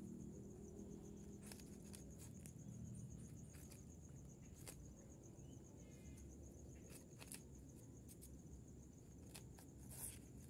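Near silence: a faint, steady high-pitched insect trill, with scattered soft clicks and rustles as rabbits nibble banana stalks among dry leaves. The sharpest click comes near the end.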